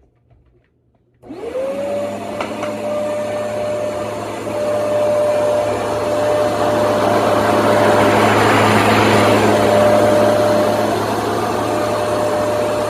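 Bissell carpet shampooer switched on about a second in, its motor whining up to a steady pitch within half a second, then running steadily with a loud rush of suction.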